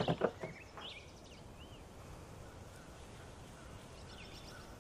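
Faint outdoor ambience with a few short bird chirps, about a second in and again near the end, over a low steady hiss.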